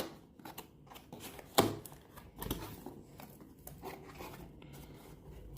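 Packaging of a projector box being handled: light rustles with scattered clicks and taps, the sharpest tap about a second and a half in.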